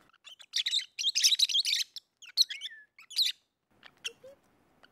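Peach-faced lovebirds chattering in rapid, high-pitched chirps, loudest in a dense burst about a second in. The chirps thin out to a few faint ticks near the end.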